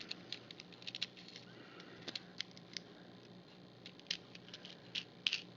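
Faint, irregular clicks and light taps of small hardware parts (washer, nut, connector) being handled and fitted together by hand, over a low steady hum.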